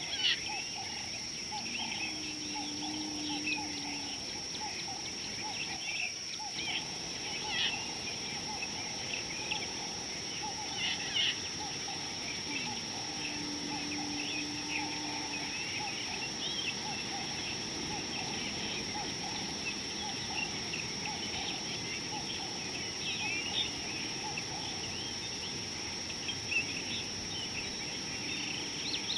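A chorus of small birds chirping and calling, short calls overlapping throughout, over a steady high-pitched drone.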